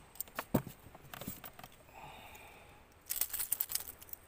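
Handling noise from a freshly landed fish on a boat: a few sharp knocks, then a quick burst of rattling clicks about three seconds in as the fish is clamped in a metal lip grip.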